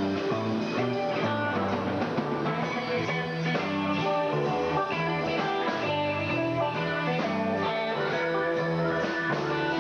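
Live rock band playing an instrumental passage, with guitar to the fore over a moving bass line.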